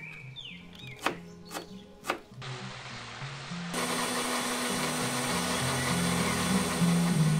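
A knife chopping green herbs on a board, a few sharp chops in the first two seconds. Then an electric mixer grinder starts, about three and a half seconds in, and runs steadily with a loud whirring, over background music.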